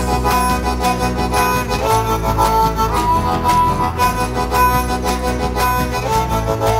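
Instrumental break in a folk-rock song: a harmonica plays a melody of held notes over guitar, bass guitar and a drum kit keeping a steady beat.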